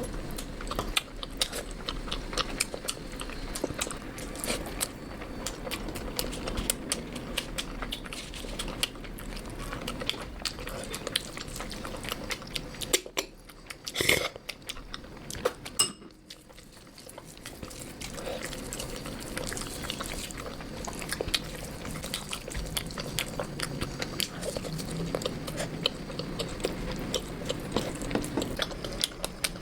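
Close-miked eating: a person chewing and biting into curry, rice and naan, with wet mouth smacks and occasional clinks of cutlery or a dish. A brief lull about halfway, broken by one sharp click.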